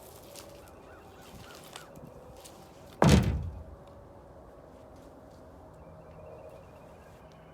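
A single loud thud about three seconds in, its low rumble dying away within about half a second.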